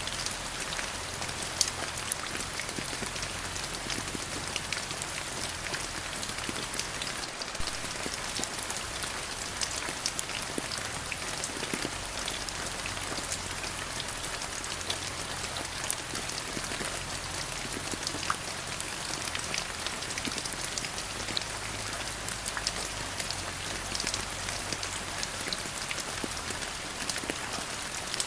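Steady rain falling on a surface, a constant hiss with many separate drops ticking through it.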